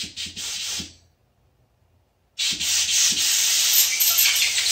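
Compressed air hissing through a motorcycle rocker shaft's oil passage: a few short blasts, a pause, then one long blast of about two and a half seconds, blowing old engine oil out of the passage.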